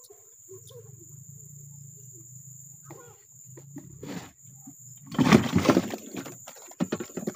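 A steady high-pitched insect drone with a low hum beneath it. About five seconds in there is a loud, noisy burst lasting under a second, followed by a few sharp clicks.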